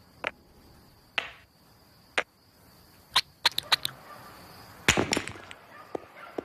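A series of sharp clicks or knocks, about one a second at first, then a quick cluster of four about three and a half seconds in and a louder flurry about five seconds in. A faint steady high whine sits underneath for the first half.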